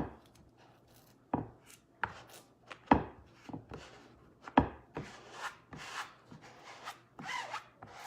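Hands and a squeegee smoothing a silk-screen transfer flat onto a wooden round board, pressing out air bubbles. The sound is a run of irregular sharp knocks on the wood, about one every half second to a second, with rubbing scuffs between them.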